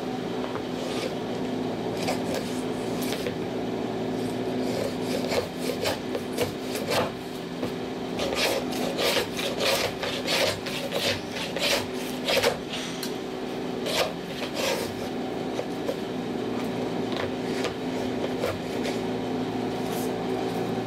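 Hand plane shaving the end of a wooden clinker plank, thinning it to half thickness for a half-lap (geralds) joint. It goes in short cutting strokes, sparse at first, then a fast run of about two strokes a second in the middle, over a steady low hum.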